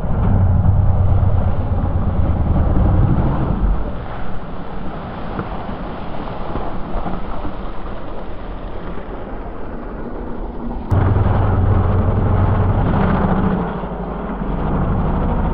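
Ducati DesertX's 937 cc L-twin engine running under load as the bike is ridden, its note rising and falling with the throttle. It eases off after the first few seconds and jumps suddenly louder about two-thirds of the way through.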